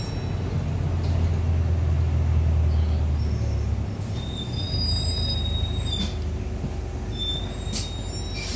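A London bus heard from inside its passenger cabin, its low drive hum fading about four seconds in as it slows. High thin brake squeals come several times, with a couple of sharp rattling clicks from the bodywork.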